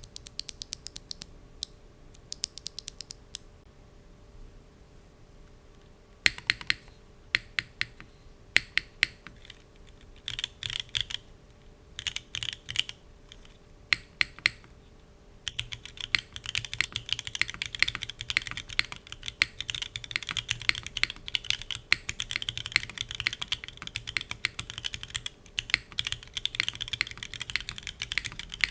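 Typing on a KBDFans Agar mechanical keyboard: a short run of light quick clicks, then a pause, then separate key presses with gaps, and from about halfway through steady fast typing.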